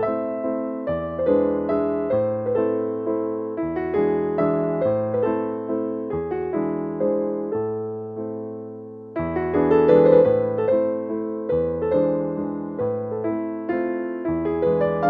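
Background piano music: a gentle melody of plucked-sounding keyboard notes, each fading after it is struck, growing softer and then starting up again louder about nine seconds in.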